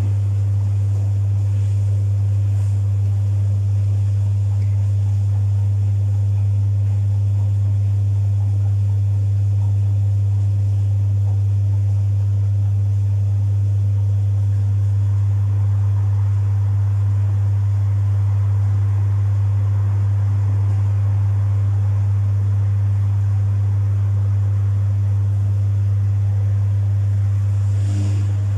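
Domus 8 kg washing machine running with a full load: a steady, loud low hum over a faint whir, with a faint click near the end.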